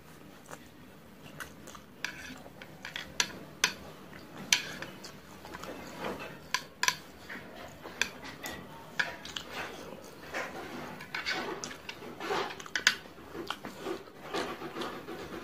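Chopsticks clicking and scraping against a stainless steel tray, mixed with slurping and chewing of instant fried noodles, in close-miked mukbang style. The clicks are irregular, several of them sharp and loud.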